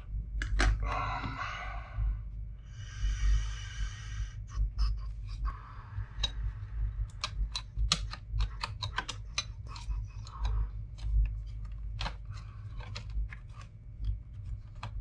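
The brittle 25-year-old plastic case of an Epson Action Note 660 CX laptop crunching, cracking and snapping as it is pried apart. Two grinding, crunching stretches come in the first few seconds, then a long run of sharp clicks and snaps.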